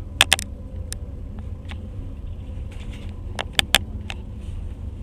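Train wheels clicking over rail joints, with a steady low rumble of the moving train. Two quick sets of sharp clicks come, one just after the start and another about three and a half seconds in, in the clickety-clack rhythm of the bogies passing a joint.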